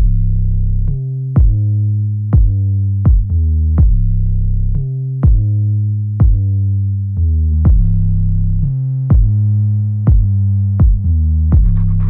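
Background music with a steady beat over held low bass notes.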